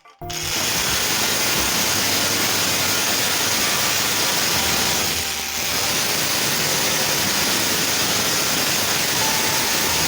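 Angle grinder running at full speed, a steady high hiss that starts a moment in, with a brief dip about halfway through.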